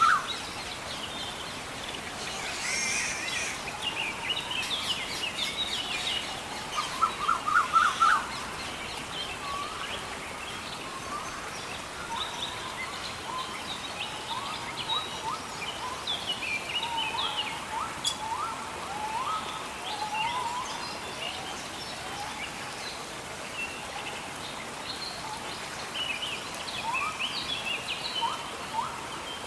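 Jungle ambience: many birds calling and chirping over a steady background hiss, with a loud run of quick rising notes about seven seconds in.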